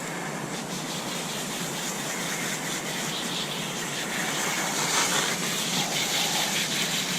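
A steady, even hiss that gets somewhat louder about halfway through.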